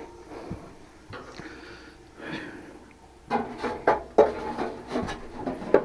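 Metal parts and hand tools knocking and clinking as a central air unit's motor assembly is worked on: a few faint clicks at first, then a quick run of sharp knocks from a little past halfway.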